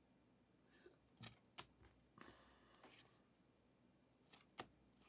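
Faint handling of trading cards: a few light taps and clicks, and a short papery slide of card against card about two seconds in.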